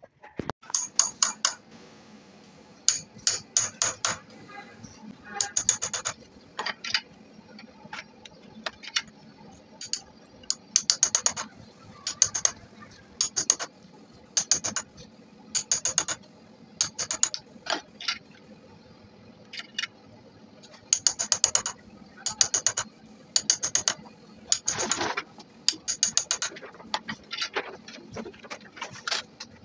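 Clusters of sharp metallic clicks and taps, several quick strikes at a time and a new cluster every second or two, from hand tools working on a starter motor armature clamped in a vise.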